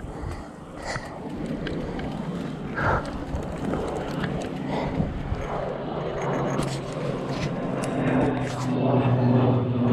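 A steady low engine drone that grows louder toward the end, with a few knocks and rubbing from the helmet camera being handled.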